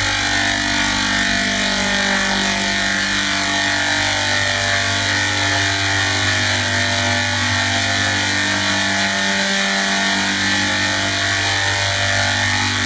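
A steady, loud drone made of many held tones, staying even in loudness throughout.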